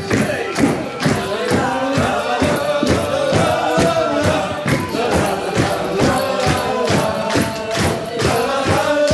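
Music: a group of voices singing together over a steady, evenly repeating percussion beat.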